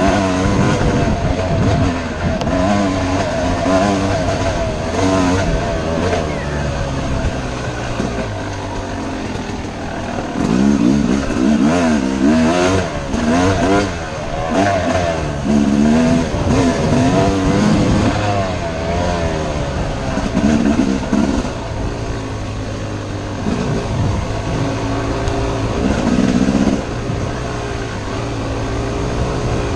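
Yamaha YZ250 two-stroke dirt bike engine being ridden off-road, revving up and dropping back again and again, its pitch rising and falling every second or two.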